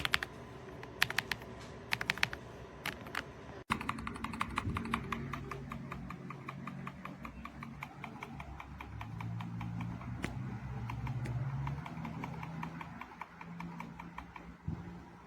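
Typing on a Redragon K668 mechanical keyboard: short clusters of key clicks, then after a sudden cut about four seconds in, fast continuous typing that thins out and stops a few seconds before the end. A low steady hum sits under the later part.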